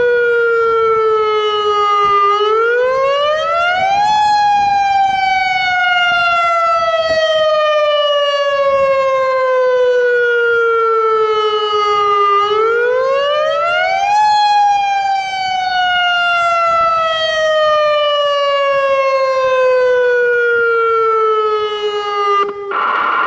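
Federal Signal Modulator AHAB tsunami siren sounding its wail tone, the signal used in real tsunami emergencies. The pitch climbs for about two seconds, then slides slowly down for about eight seconds, twice over, and the wail cuts off near the end.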